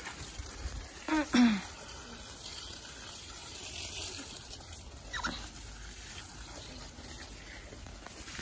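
Garden hose spraying water onto a strawberry bed, a steady rush of water. About a second in comes a short call that falls in pitch.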